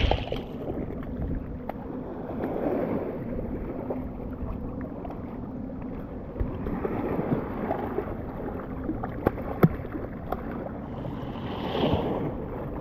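Small waves washing in at the water's edge every few seconds, with wind on the microphone and a few light clicks and knocks.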